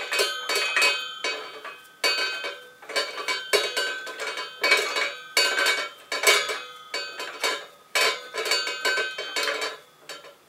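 Metal parts of an Explore Scientific Twilight I alt-azimuth mount clinking and rattling with a bell-like ring in repeated short bursts, as the mount head is twisted to screw it onto the tripod's central tension rod.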